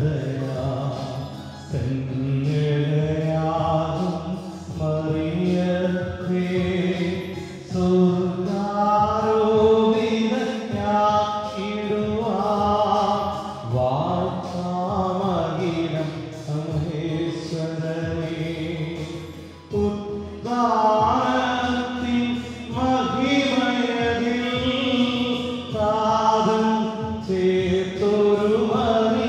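Church congregation singing a slow prayer hymn together, voices holding long notes in phrases broken by short pauses.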